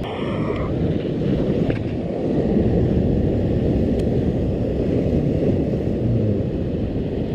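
Wind buffeting an action camera's microphone: a steady, low rumbling noise.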